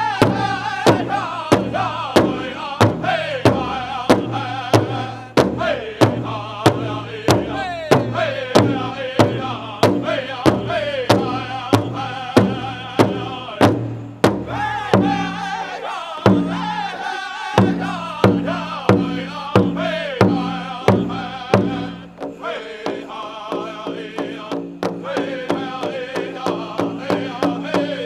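Powwow drum group singing a prairie chicken dance song: several male voices in high, falling phrases over a steady beat struck together on a large drum, about two strokes a second.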